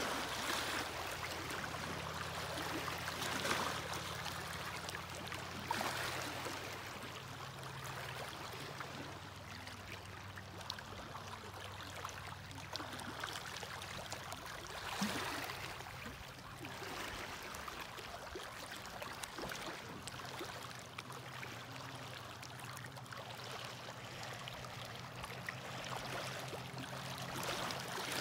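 Small lake waves lapping and washing over a rocky, pebbly shoreline, with a few louder splashes about three and a half, six and fifteen seconds in. A faint, steady low engine hum runs beneath most of it.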